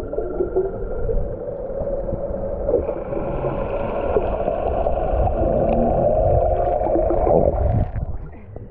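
Muffled underwater rushing and bubbling of seawater picked up by a submerged camera during a freedive, dropping off about eight seconds in.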